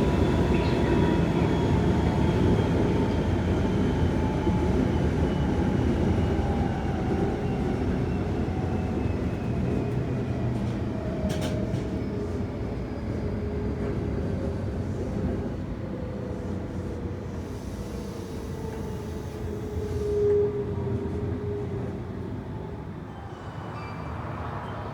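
Senboku Rapid Railway 7000-series electric train heard from inside the car as it slows: a rumble of wheels on the rails under several whining tones from the traction motors that fall steadily in pitch and fade as the train nears a stop. A brief louder tone sounds about twenty seconds in.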